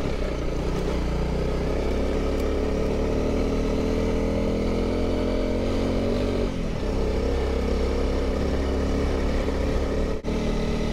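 Honda CRF300 Rally's single-cylinder engine pulling the bike along a dirt road, its note climbing slowly, then dropping sharply about six and a half seconds in as at a gear change, with a brief drop-out near the end.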